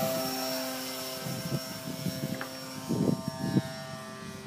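Multiplex Fun Cub RC model plane's electric motor and propeller whining at a steady high pitch at full throttle after takeoff, fading gradually as the plane climbs away.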